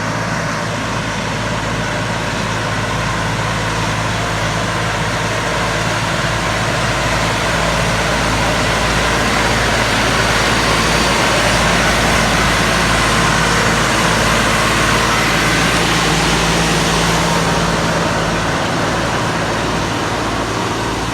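Erkunt tractor's diesel engine running steadily with a constant low hum, growing a little louder through the middle and easing back near the end.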